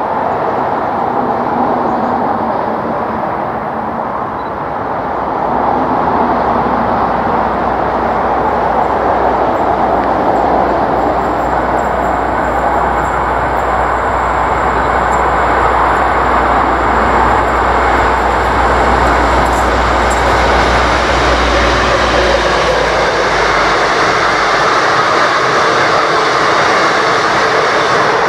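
V/Line N class diesel locomotive hauling a passenger train rolls past. A low engine rumble builds and holds through the middle, then drops away a few seconds before the end, under a steady rushing noise of the train on the rails.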